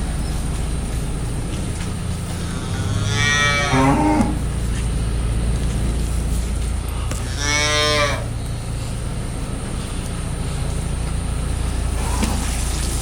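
Cattle mooing in a barn: two long moos, about three and seven seconds in, and a faint third near the end, over a steady low hum.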